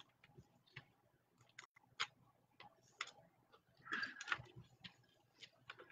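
Faint, scattered small clicks and light handling noise, with a brief cluster of rustling clicks about four seconds in.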